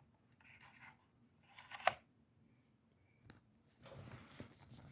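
Faint handling noises: soft rubbing and rustling, with a sharp click about two seconds in and a weaker one a little after three seconds.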